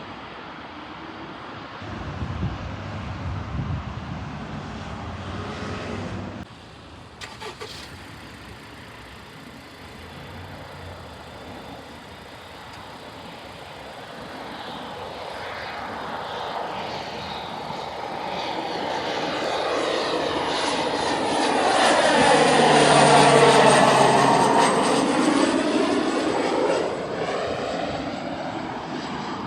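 An aircraft passing close by, growing louder to a peak about three-quarters of the way through and then fading, with a high whine that drops in pitch as it goes past.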